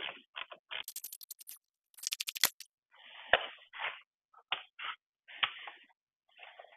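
Handling noise of a car side mirror being worked off its door mount: plastic scraping and rubbing with sharp knocks, and two short runs of rapid clicking, about ten a second, around one and two seconds in.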